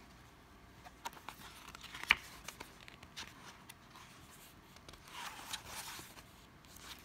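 Handling of a CD album's paper and plastic contents: light rustles and small clicks, with one sharp click about two seconds in and a longer rustle around five seconds in.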